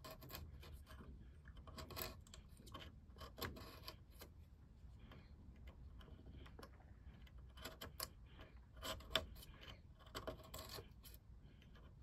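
Small craft-knife blade trimming and carving the edge of half-millimetre wood veneer on a plywood bulkhead: faint, irregular scratches and small clicks, coming in short clusters.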